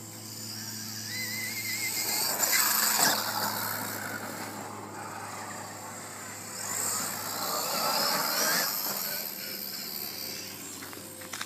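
Traxxas E-Revo RC monster truck's brushless electric motor and drivetrain whining as it is driven, swelling loud twice as it accelerates, once about two to three seconds in and again near the end.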